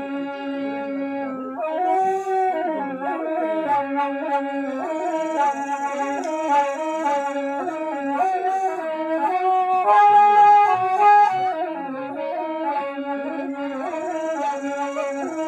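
Long Toraja bamboo suling flute playing a slow melody of long held, wavering notes that step up and down in pitch.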